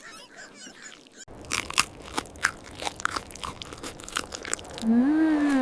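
Crunching and chewing: many quick crisp bites into frozen popsicles, the animated hamsters eating their treats. Near the end a wavering pitched vocal sound begins, like a contented hum.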